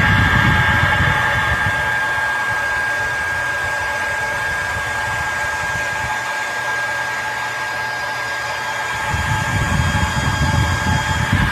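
Hair dryer running steadily with a high whine over the rush of air. A low rumble fades about two seconds in and comes back near the end.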